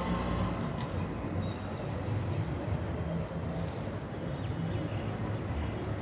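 Outdoor background noise: an uneven low rumble with a faint hiss above it.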